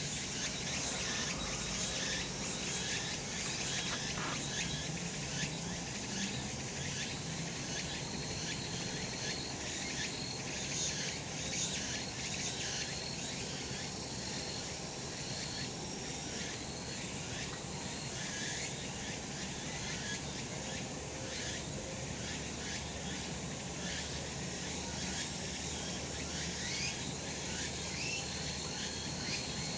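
A chorus of cicadas calling in summer sun, a dense, steady high-pitched buzz that does not let up.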